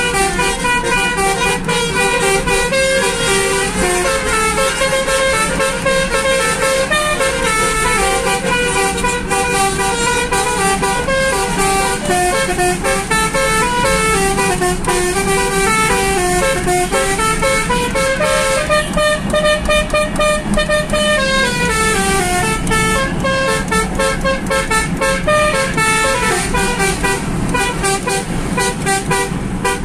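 Basuri telolet air horn, a set of switched air horns, playing a melody note by note with a few quick falling runs of notes.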